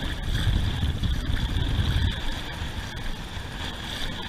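Wind buffeting the microphone over shallow surf washing around the legs, a low rumble that is heaviest in the first two seconds and then eases.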